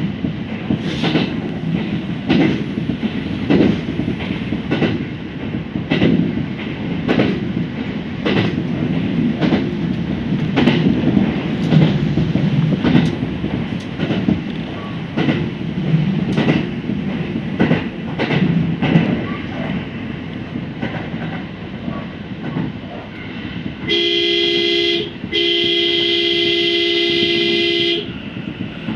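Kintetsu Nara Line electric train running, its wheels clacking over rail joints about once a second over a steady rumble. About 24 seconds in a train horn sounds twice, a short blast then a longer one of nearly three seconds.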